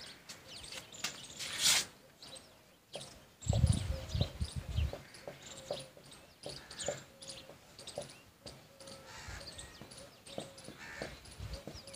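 Felt-tip marker writing on a whiteboard: many short squeaks and light taps of the tip on the board. A brief hiss comes just before two seconds in, and a burst of low thumps about three and a half seconds in.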